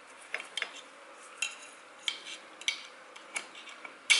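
Small screwdriver or pick clicking and scraping against the steel retaining clip as it is pried out of its groove at the top of a motorcycle fork's outer tube: about seven sharp metallic clicks, spaced irregularly.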